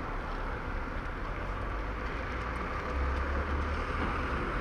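Steady noise of passing car traffic heard from a moving bicycle, with a low rumble that swells about three seconds in.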